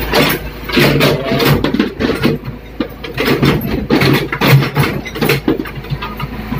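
Mini excavator's engine running steadily while its bucket digs and scrapes through soil and broken concrete, with repeated knocks and scraping of rubble.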